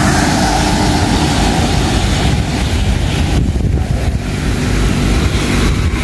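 Strong wind buffeting the microphone in a rainstorm, with a steady hiss of rain and a car passing on the wet road.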